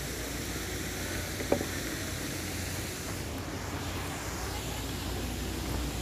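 Steady outdoor rumble and hiss, like wind on a phone microphone, with one sharp tap about a second and a half in.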